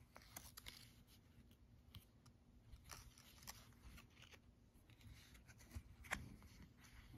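Faint rustling, scratching and small clicks of fingers handling a plush toy's paper hang tag, with one sharper click about six seconds in.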